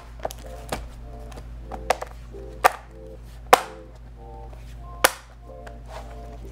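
Plastic bottom cover of a Dell Chromebook 11 3110 snapping onto the chassis as its clips are pressed home: about six sharp snaps at irregular intervals, the loudest about three and a half seconds in. Soft background music plays throughout.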